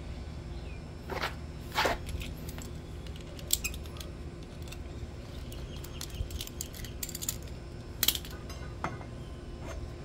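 Metal hand tool clinking and scraping against a Can-Am X3 brake caliper while a stuck caliper pin is worked loose: scattered sharp metallic clicks, loudest about two seconds in and again about eight seconds in.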